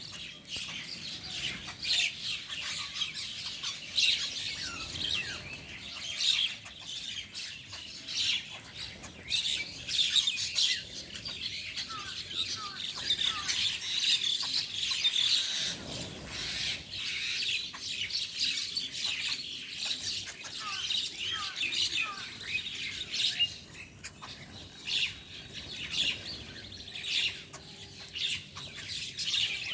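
A flock of small birds chirping and squawking as they feed, many short calls overlapping without pause, with a brief whoosh about halfway through.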